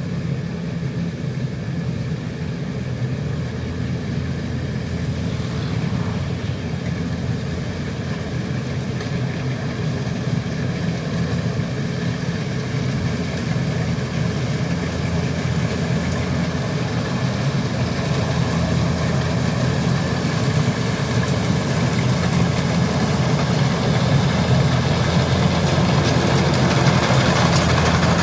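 Kubota DC105X combine harvester's diesel engine running steadily while it cuts rice, growing gradually louder toward the end.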